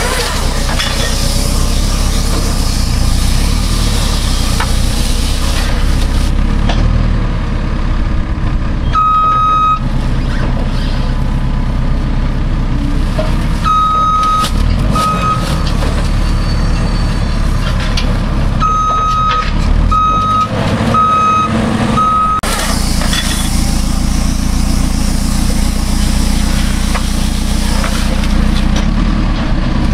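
JCB TM310S telehandler's diesel engine running steadily while it works a loader-mounted Tanco bale wrapper. Over the engine an electronic beeper sounds a single clear tone: one beep about nine seconds in, another around fourteen seconds followed by a short one, then four evenly spaced beeps about a second apart.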